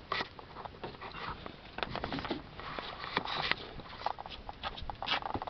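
Rustling and scattered light clicks and knocks from hands and tools moving about in a car's engine compartment.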